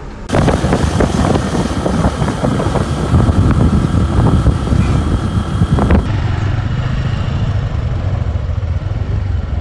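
Riding noise from a moving vehicle: a loud, gusty rush of wind on the microphone over engine rumble. About six seconds in it changes abruptly to a steadier low engine hum with much less wind.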